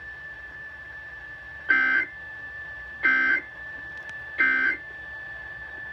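Three short, loud digital data bursts about 1.3 seconds apart over a faint steady high whistle: the Emergency Alert System's end-of-message (SAME "NNNN") tones, marking the end of a relayed severe thunderstorm warning.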